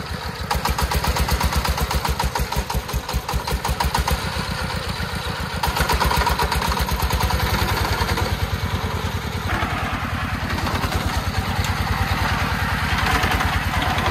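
Single-cylinder diesel engine of a loaded three-wheeled công nông farm truck running under load, with a fast, even thudding beat. It gets louder about half a second in and again a little before the middle, as the truck drives over rough ground.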